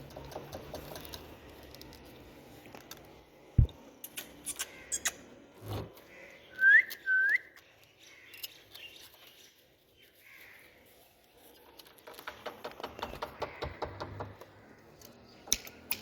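Indian ringneck parrot whistling: two short curling whistles half a second apart about seven seconds in, with scattered clicks before them and a run of rapid soft clicks near the end.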